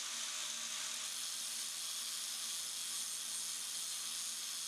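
Angle grinder disc grinding the bevel of a steel chisel: a steady, even grinding hiss over the faint hum of the motor, with a burr forming on the back of the blade.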